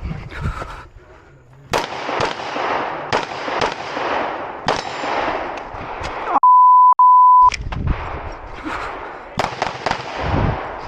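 Electronic shot timer's start beep: one loud steady tone of about a second with a short break in the middle, among scattered sharp gunshot cracks over a steady rushing noise.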